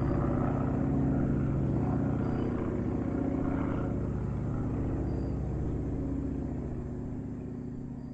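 Small propeller airplane's engine running steadily, gradually fading away through the second half.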